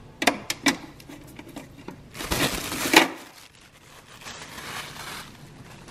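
Hard plastic parts of a new countertop ice maker being handled: several sharp clicks and taps, then a longer rustling scrape about two seconds in that ends in a knock, and a softer rustle near the end.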